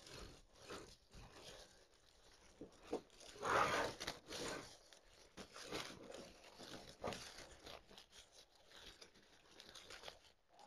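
Artificial flower stems and leaves rustling and crunching against a grapevine wreath as they are pushed in and arranged by hand, in irregular faint rustles with the loudest about three and a half seconds in.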